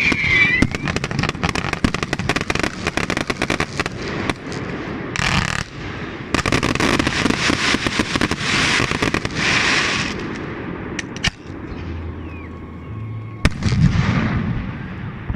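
Fireworks going off: a dense run of rapid crackling, then several hissing bursts, and a single sharp bang near the end.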